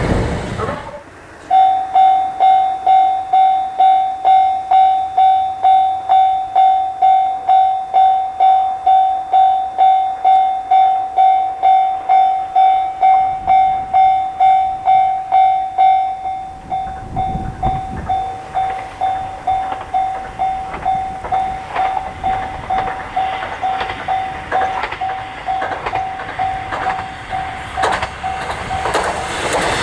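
Japanese level crossing's electronic warning bell starts about a second and a half in and rings a steady "kan-kan" at about two strikes a second, dropping in level about halfway through. A train's rumble builds under it toward the end.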